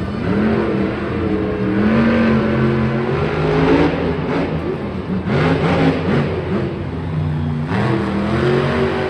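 Monster truck's supercharged V8 engine revving, its pitch rising and falling again and again as the truck drives and turns over the dirt.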